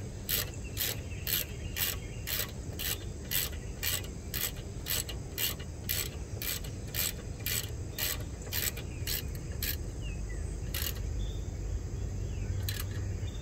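Hand socket ratchet clicking in quick, regular strokes, about three a second, as a 10 mm bolt is run down on the truck's rear brake assembly. The strokes slow to a few single clicks near the end.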